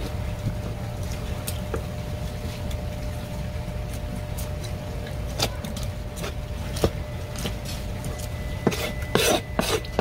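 Knife work on a black porgy on a plastic cutting board: scattered clicks and knocks as the fillet is cut away, with a quick cluster of sharper knocks near the end, over a steady low hum.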